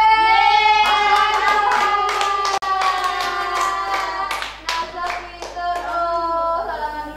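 Voices singing a melody with long held notes while hands clap along, about three claps a second; the clapping stops about six seconds in while the singing goes on.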